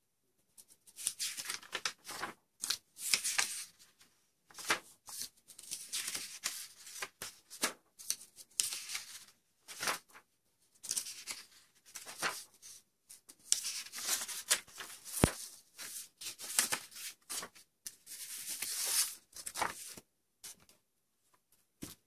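Printed paper sheets being handled and turned over, rustling and swishing in repeated spells, with one sharp tap partway through.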